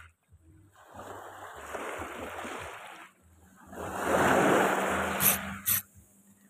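Small sea waves washing up on the shore in two surges, the second louder, with wind buffeting the microphone. Two sharp clicks near the end.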